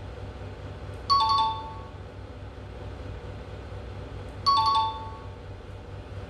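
Tablet maths game's two-note falling chime, played twice about three and a half seconds apart, each time a correct number is placed in an answer box. A steady low hum runs underneath.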